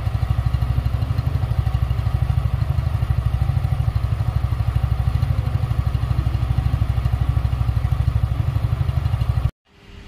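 Single-cylinder motorcycle engine idling steadily, heard close to the exhaust outlet as an even, fast pulsing. It cuts off suddenly near the end.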